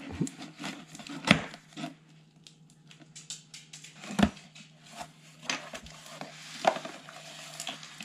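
A cardboard shipping box being opened by hand: a blade scraping along the packing tape and cardboard, with a few sharp knocks, then the cardboard flaps being handled and pulled open.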